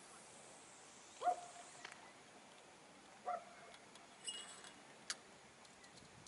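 Two short animal calls, about two seconds apart, over a quiet background. A faint brief ring and a sharp click follow near the end.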